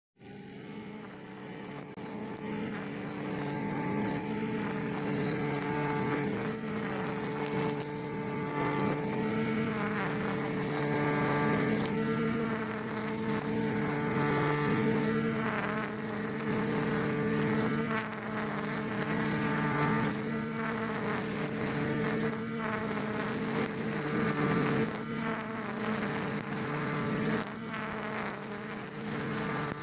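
Brush cutter with 2.2 mm nylon trimmer line, its small engine running steadily at high speed while the spinning line cuts through grass, with a high hiss over the engine note.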